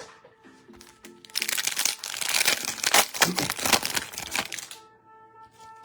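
Foil wrapper of a trading card pack being torn open and crinkled by hand for about three seconds, over steady background music.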